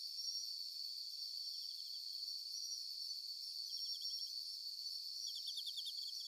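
Crickets chirping: a steady high trill, with two short runs of rapid chirps about four and five and a half seconds in.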